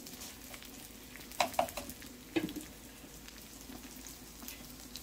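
Sesame seeds, onion and tomatillos sizzling gently in oil in a frying pan on lowered heat, with a steady low hum underneath. A few sharp clicks come about one and a half and two and a half seconds in.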